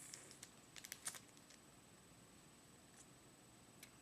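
Faint clicking of a kitten suckling on a bottle nipple: a quick cluster of small clicks in the first second and a half, then a few isolated ones. A faint steady high whine sits underneath.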